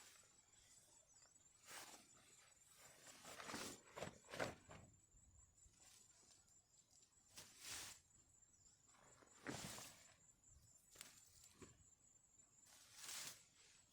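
Soft, irregular rustles and crunches, a dozen or so short noises spread unevenly, the kind made by someone moving about and handling things on leaf litter at a forest camp. A faint steady high tone runs beneath them.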